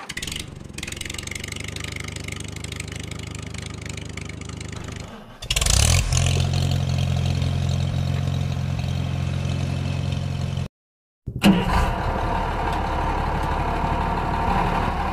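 Tractor engine running steadily, a sound laid over the hand-moved toys, which have no motors. It changes to a louder, deeper run about five and a half seconds in, drops out to a moment of silence a little past ten seconds, and comes back with a sudden loud start.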